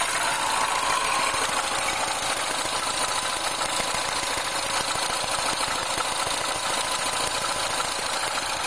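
R56 Mini's four-cylinder engine idling steadily on a cold start, with the rattle that the owner puts down to timing chain noise.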